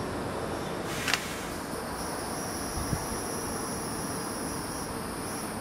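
Steady high-pitched insect buzzing that sets in about two seconds in, over a low steady background hum, with one sharp click about a second in.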